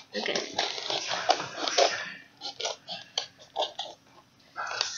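Irregular rustling and crackling of packaging being handled by hand, dense for about two seconds and then in scattered short bursts.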